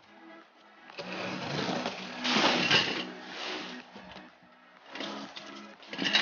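Cardboard shipping box being handled and opened: flaps rustling and scraping, with the boxed recessed light cans shifting inside. The rustling is loudest about two to three seconds in, with sharper clicks and knocks near the end.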